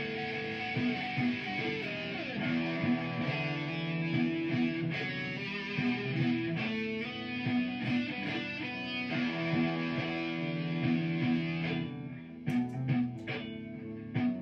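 Electric guitar improvisation played over a looped backing layer through a pedalboard. About twelve seconds in the looped layer drops out, leaving a few last struck notes near the end.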